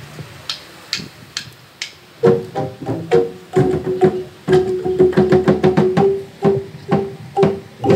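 Live music on wooden percussion struck with sticks or mallets, xylophone-like. A few light knocks come first; about two seconds in, a fast pattern of pitched wooden strikes begins, repeating two or three notes.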